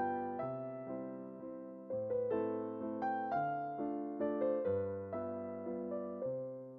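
Background piano music: a slow waltz with a bass note struck about every second and a half under gently decaying chords.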